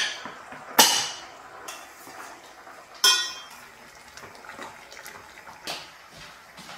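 Stainless steel cookware clanking: the pressure cooker's lid and weight being set in place, then a steel ladle knocking against a steel pot while stirring. A few sharp clanks, one about three seconds in ringing briefly.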